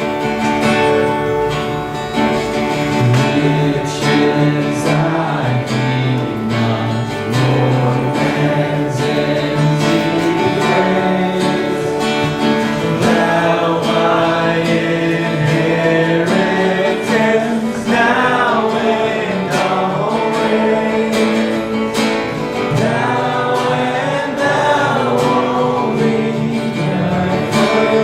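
Live worship music: an acoustic guitar strummed under sung melody.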